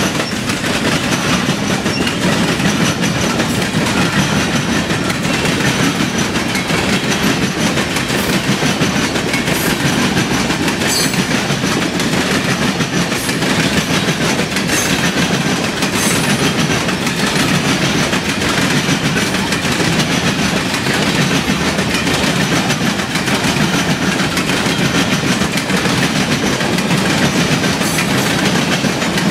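Freight cars of a CN mixed freight train rolling past close by at speed: steady, loud noise of steel wheels on the rails.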